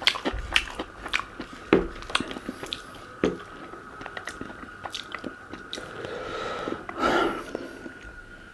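A person eating close to the microphone: chewing and biting with many small, sharp wet clicks and crunches. A faint steady high whine runs underneath.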